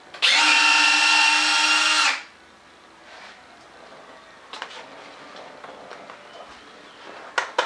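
A small electric motor in the foam RC jet whirs loudly at one steady pitch for about two seconds, starting and stopping abruptly. After it, the foam airframe is handled, with a few faint knocks and two sharper clicks near the end.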